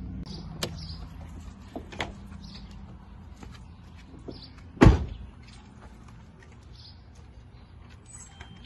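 A car door is unlatched and opened with a few sharp clicks, then shut with a single loud thump about five seconds in. Birds chirp throughout.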